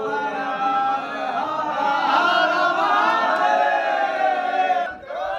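A group of men chanting a slogan together, drawn-out voices in unison that break off about five seconds in.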